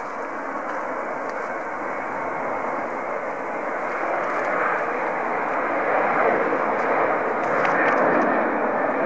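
Boeing 737 jet engines running as the airliner rolls along the runway: a steady rushing jet noise with a faint held hum, growing gradually louder.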